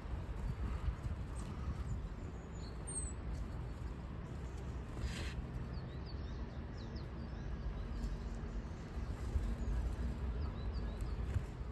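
Scattered short, faint high calls of great tits over a steady low background rumble, with a brief rustling noise about five seconds in.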